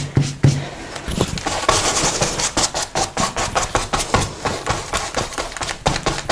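Paintbrush scrubbing acrylic paint onto canvas in quick back-and-forth strokes, several a second.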